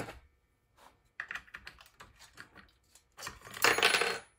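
Light clicks and taps of small tools being handled on a workbench, then, near the end, a loud rustle of about a second as the freshly wound voice coil with its parchment-paper wrap is slid off the winding spindle.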